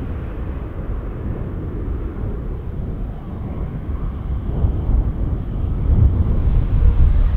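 Low, steady rumble of a departing Boeing 737-800's CFM56 jet engines, growing louder over the last few seconds.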